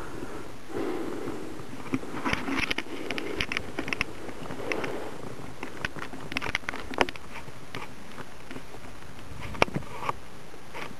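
Snowshoe steps crunching on crusted snow: irregular clusters of crisp crunches and clicks over a low, steady rumble.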